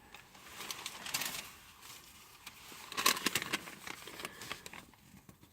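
Paper receipts being handled, rustling with light clicks in two spells, about a second in and again around three seconds in.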